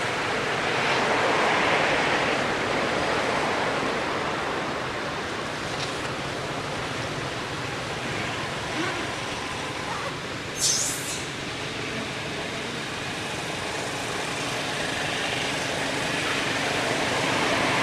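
Steady outdoor background noise, a constant hiss like distant traffic or wind, with one brief high-pitched squeak about ten seconds in.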